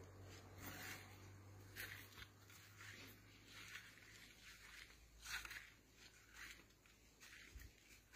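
Faint footsteps on gravel: soft, irregular crunches every half second to a second over near silence.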